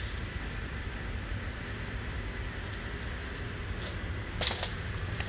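Quiet room tone: a steady low rumble under a faint, wavering high-pitched whine, with a brief rustle about four and a half seconds in.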